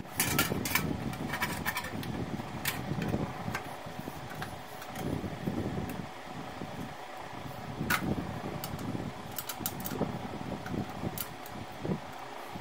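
A steady fan-like hum, with a few sharp light clicks of small metal bolts being handled and fitted to a motorcycle's sheet-metal panels. The clicks come as a cluster in the first second, then singly now and then.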